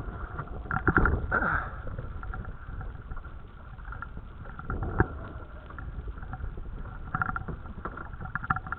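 Wind buffeting the microphone over waves slapping against a small dinghy's hull, with a few sharp knocks, the loudest about one second in and again about five seconds in.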